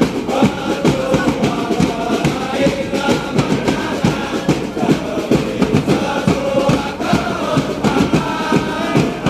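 Football supporters' section chanting a song together in unison, driven by a fast, steady beat on bass drums struck with mallets.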